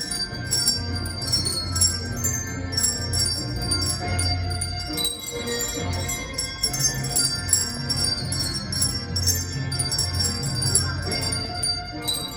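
Handbell ensemble playing a Christmas piece: many bell notes struck and ringing on in a busy tune, over a low bass line.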